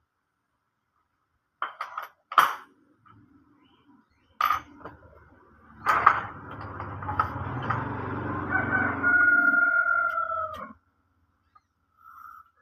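A rooster crowing: a long held call that ends abruptly about two thirds of the way through, over a noisy stretch with a low hum. It is preceded by a few sharp knocks.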